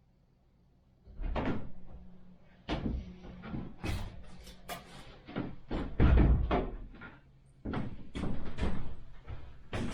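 A string of irregular knocks and bangs, about a dozen, the loudest about six seconds in, over a faint low hum.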